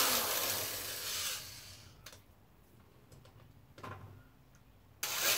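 Electric drill with a step bit cutting thick HDPE plastic stops and spins down in the first second or so, followed by a few light clicks of handling. About five seconds in the drill starts up again suddenly.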